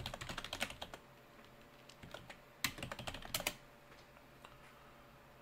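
Typing on a computer keyboard: a quick run of key clicks in the first second, a pause, then a second run of keystrokes from about two and a half to three and a half seconds in.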